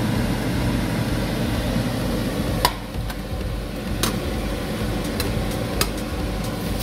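Burger patties sizzling in a lidded frying pan over a steady low hum, with a few sharp clinks of ceramic plates being moved on the glass cooktop, the loudest a little under three seconds in.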